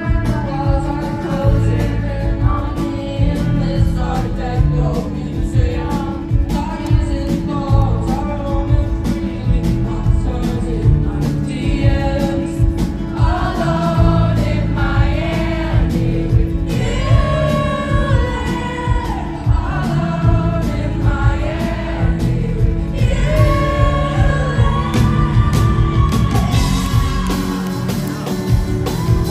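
Live pop band playing: guitars, bass and drums with a woman singing lead. The low end is heavy and booming, as heard from within the audience.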